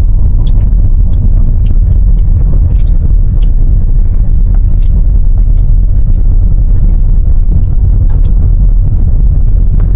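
A car driving slowly: a loud, steady low rumble of the moving vehicle, with scattered light ticks throughout.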